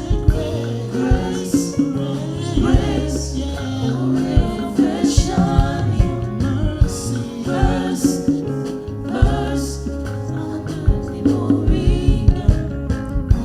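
Gospel music with singing, over a band with bass and drums and a steady beat.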